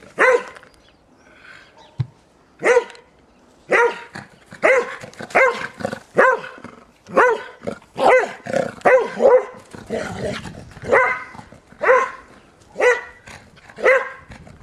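Springer spaniel barking while playing in snow: a string of short, sharp barks, roughly one a second, after a pause of about two seconds near the start.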